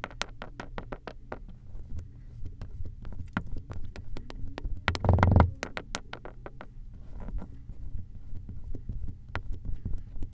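Fine sand pouring into a glass, its grains landing as scattered sharp ticks over a low hum, with a short louder rush of sand about five seconds in.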